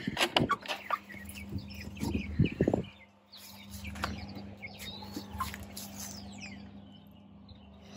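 Hens stirring inside their chicken coop: knocks, wing flaps and a few short calls in the first three seconds, then quieter, with small birds chirping.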